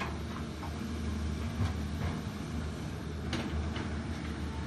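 Diesel engine of a Volvo long-reach excavator running steadily as its boom and arm move, with a few short knocks, the clearest about three seconds in.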